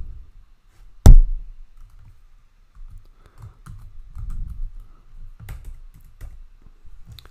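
Computer keyboard being typed on: scattered key clicks and soft thuds, with one much louder sharp knock about a second in.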